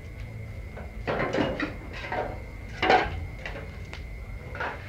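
Several clattering knocks and scrapes of a long-handled tool working over coals and hard ground, the loudest about three seconds in.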